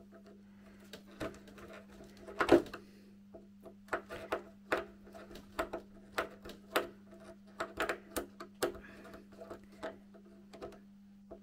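Hand screwdriver turning a worn screw out of a small brass latch fitting on a wooden window frame: irregular sharp clicks and scrapes, the loudest about two and a half seconds in, over a steady low hum. The screw heads are worn, so the screws turn out stiffly.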